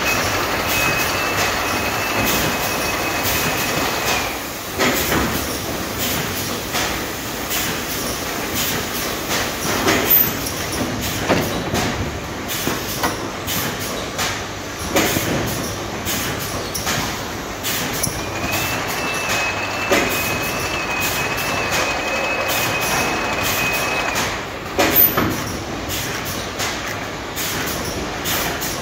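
Automated candle-refill production line running: a conveyor carrying plastic cups, with a steady mechanical noise and frequent clicks and knocks. A high steady whine sounds for about the first four seconds and again for about six seconds past the middle.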